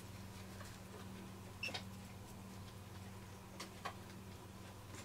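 A few faint clicks of multimeter test probes touching the drone's carbon frame during a continuity test, over a low steady hum.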